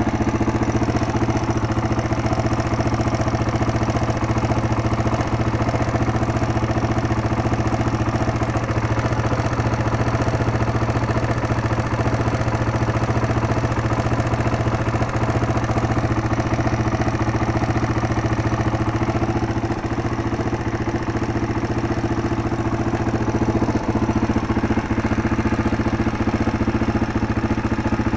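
Yamaha Serow motorcycle's single-cylinder four-stroke engine idling steadily with valve clatter, which the mechanic says only needs a valve adjustment.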